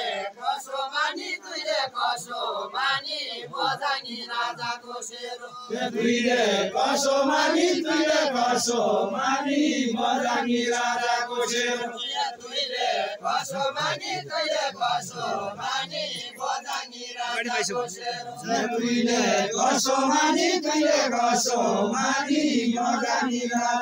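Nepali Deuda folk song sung by a group of men together in chant-like unison, in repeated phrases. The singing grows louder about six seconds in.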